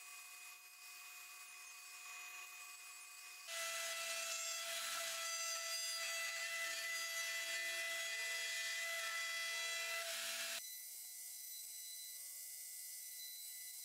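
A bandsaw running with a steady whine as small wooden blanks are fed through it; about three and a half seconds in, a louder router takes over, its high whine dipping and recovering several times as a template-guided flush-trim bit cuts curves into small hardwood legs. Near the end a router runs more quietly and steadily with a small bearing-guided bit.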